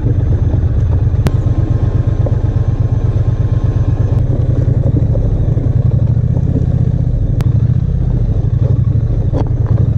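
Triumph Bonneville T100's 900 cc parallel-twin engine running at low revs in a low gear, a steady low pulsing, as the bike crawls over rough rocky gravel. A few sharp clicks are heard over it.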